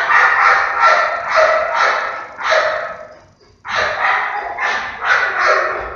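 A dog barking repeatedly, about two barks a second, in two runs with a short pause near the middle.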